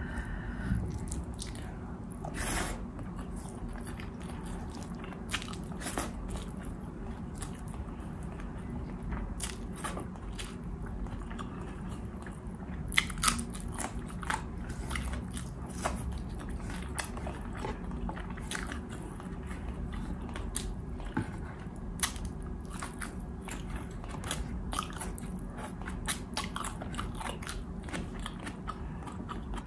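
A person chewing and biting food close to the microphone, with irregular crisp, crunchy clicks. A steady low hum runs underneath.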